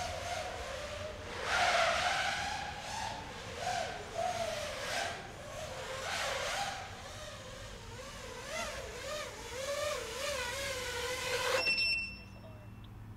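A 6-inch FPV quadcopter's brushless motors (Emax 2306 2400kv) and propellers whining, the pitch rising and falling constantly with the throttle as it flies. The whine cuts off abruptly near the end.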